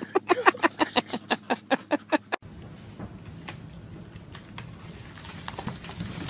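A dog barking rapidly, about five short barks a second, stopping abruptly a little over two seconds in; after that, quiet room sound with a few faint clicks.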